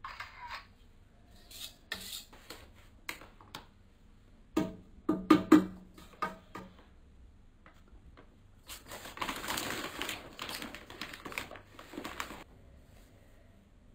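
Kitchen handling noises while making batter: light clicks, then a few loud sharp knocks around the middle, followed by about four seconds of a paper flour bag rustling that stops suddenly.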